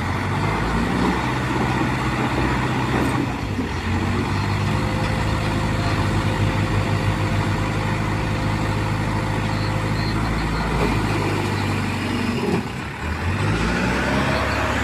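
Hydra mobile crane's diesel engine running under load. The revs rise at the start, hold steady, drop about twelve seconds in and climb again near the end.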